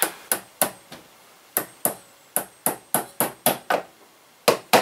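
A hammer tapping a cable clip's pin home: about a dozen short, sharp taps in three quick runs, with a short pause about a second in and another near the end.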